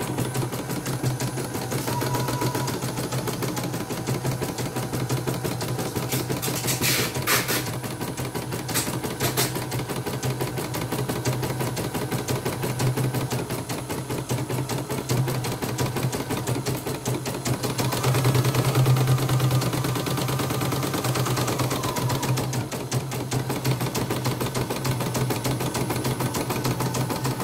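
CNY portable computerized embroidery machine stitching at speed: a rapid, even needle ticking over a steady motor hum, with a couple of sharper clicks about a third of the way through. It is a test run after the motor and thread tension assembly were replaced, and it is running smoothly.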